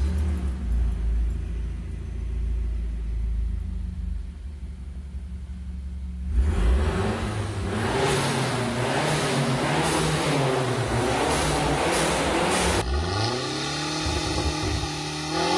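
Mazda CX-7's turbocharged four-cylinder through a cat-back exhaust: a deep, steady exhaust drone for about six seconds, then the engine revving with pitch swinging up and down. Near the end it revs up and falls back again.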